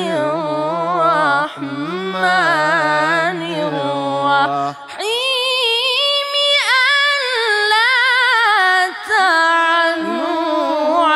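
A teenage boy chanting Quran recitation in the melodic, ornamented tajweed style, with long wavering held notes. About five seconds in, the voice leaps from a low register to a much higher one.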